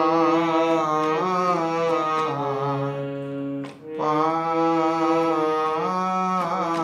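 Harmonium playing a Gaudiya bhajan melody in held reed notes, with a man's voice singing along. The phrase is sung twice, with a short break a little past halfway.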